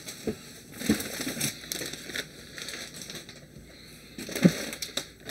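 Packaging rustling and crinkling as it is handled, with a few knocks; the loudest knock is about four and a half seconds in.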